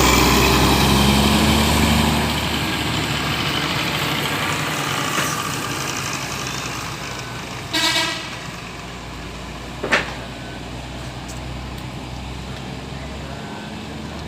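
A bus going past close by, its engine rumble and road noise loud at first and fading as it moves away. A brief tone sounds about eight seconds in, and a sharp click near ten seconds.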